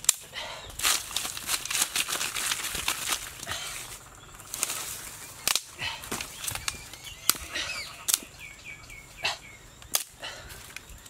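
Dry bamboo leaves rustling and crackling as they are walked on and handled, with several sharp snaps from dry sticks being gathered for kindling.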